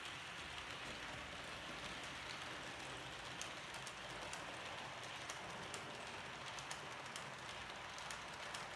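H0 scale model train of TEE 'Rheingold' coaches rolling along the track: a steady metallic rolling hiss with scattered light clicks of the wheels over rail joints.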